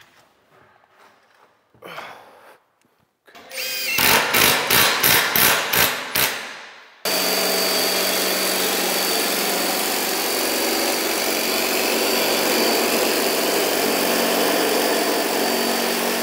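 A quick run of about eight sharp knocks. Then a Milwaukee cordless metal shear starts abruptly and runs steadily as it cuts lengthwise through a corrugated galvanized steel ceiling panel, peeling off a long curled strip of metal.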